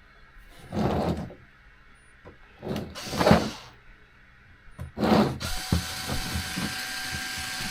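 Small electric screwdriver backing out screws: three short bursts, then a steady whine held for about three seconds from around five and a half seconds in.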